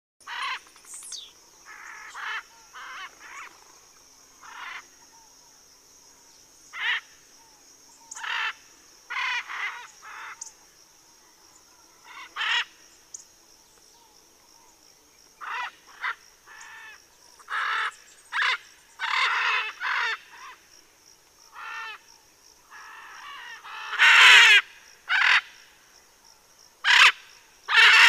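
Macaw squawking: a long series of short, harsh calls at irregular gaps of a second or two, growing louder near the end.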